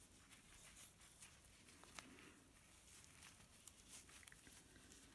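Near silence, with faint light clicks and rustles of gloved hands handling a small motor part and its bearing.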